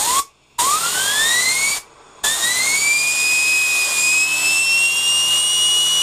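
Compressed-air blow gun hissing in three blasts, short, longer, then long, spinning up the turbine rotor of a dismantled aircraft turbo-cooler. A high whine climbs in pitch during each blast as the rotor speeds up, dipping slightly in the brief pauses and rising to its highest in the last, longest blast.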